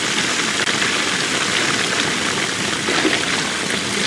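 Water gushing steadily out of the end of a pool pump's discharge hose and splashing onto rocks, a constant rushing as the swimming pool is drained.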